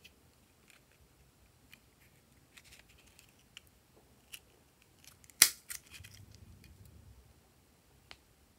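Plastic butterfly-shaped craft lever punch cutting glitter paper: light clicks of handling, then one sharp loud snap about five seconds in as the punch cuts through, followed by a couple of smaller clicks and a soft rustle. One more light click near the end.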